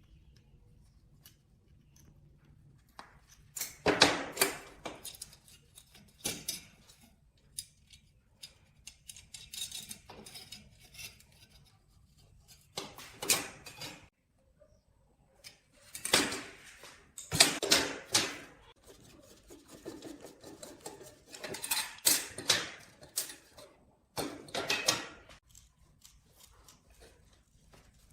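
Intermittent clattering and scraping of hard objects being handled, in bursts of a second or two, the loudest around four seconds in and again from about sixteen to twenty-five seconds.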